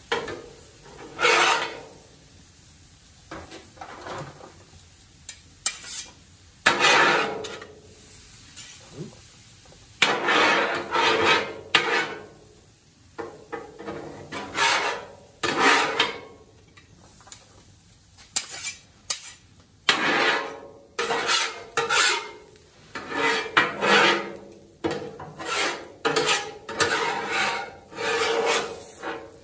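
Metal spatulas scraping across the steel top of a Blackstone griddle in many irregular strokes, gathering up cooked cauliflower rice, chicken and corn.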